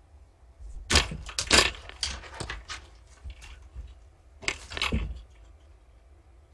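Close-up scraping, knocking and crackling as kittens brush against and paw at the camera, in two bursts of quick clicks, the second about a second and a half after the first ends.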